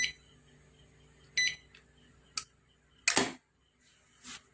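Hitachi inverter split AC indoor PCB's buzzer beeps twice, a short high beep at the start and another about a second and a half later, acknowledging the remote's off and on commands. A sharp click and a brief rustle follow.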